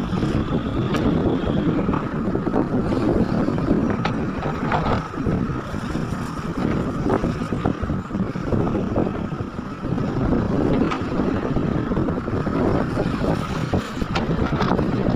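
Heavy diesel earthmoving machinery running steadily under load, with scattered short knocks and clanks.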